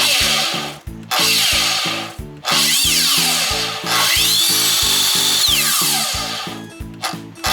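Hitachi C7FSH2 slide miter saw switched on four times in short runs, the last one longest. Its motor whine rises as it spins up and falls as it coasts down, over a loud harsh noise that the owner puts down to worn bearings. Background music with a steady beat plays underneath.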